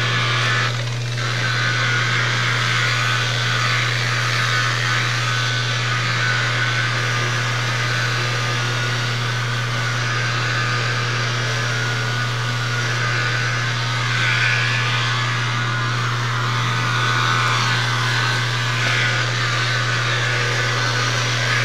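Corded electric rotary polisher running steadily with its pad on the bumper's clear coat, with a constant low motor tone under a whirring hiss. It is buffing out the slight roughness where the blended clear coat tapers out.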